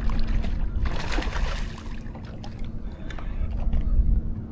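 Sounds of a kayak on the water: a constant low rumble with a brief rushing hiss about a second in.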